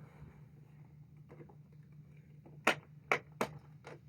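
Plastic Duplo bricks knocking and clicking together as they are handled and pressed into place, with a few soft knocks and then three sharp clicks in quick succession in the second half.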